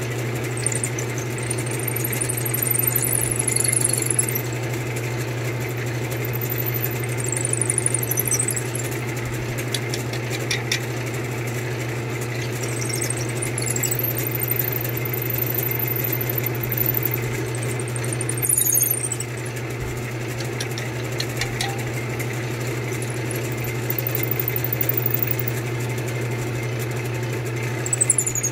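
Wood lathe running steadily with a long drill bit spinning in the headstock chuck, boring into a turned wooden chair spindle fed by hand. Short high-pitched squeals come from the cutting several times.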